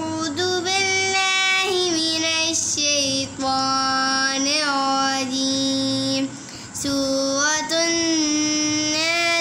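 A high female voice chanting Quranic recitation in three long, drawn-out melodic phrases, each note held and gently ornamented, with short pauses for breath between them.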